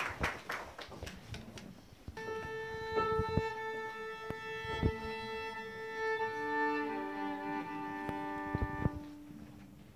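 Violin being tuned: one bowed note held steady for about five seconds, then a lower two-string pair sounded together for about two seconds. The last scattered claps of applause die away in the first second.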